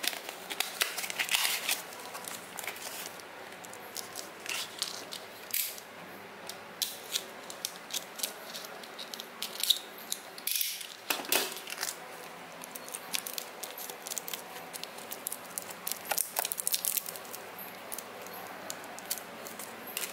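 Plastic blister pack of a microSD card being opened and handled: stiff plastic and card crinkling, tearing and clicking, busiest in the first few seconds, with a louder rustle about halfway through.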